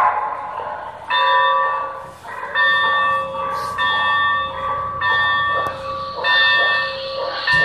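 Sound-equipped model steam locomotive playing its locomotive bell through its onboard speaker, ringing about once every 1.2 seconds while the train runs.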